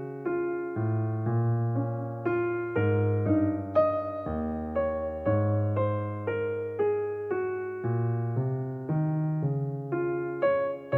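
Background piano music: a slow succession of struck chords over low bass notes, each fading after it is played.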